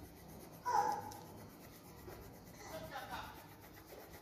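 Coloured pencil scratching and rubbing on paper as an outline drawing is shaded in. Two short voice sounds cut in, the louder about a second in and a fainter one about three seconds in.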